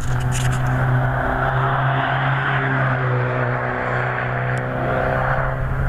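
Race car engine running at a steady, nearly constant pitch for several seconds.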